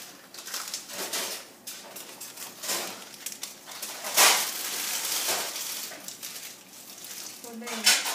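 Crinkling and rustling of a clear plastic sterile cover and drape handled by gloved hands, in irregular bursts, loudest from about four seconds in.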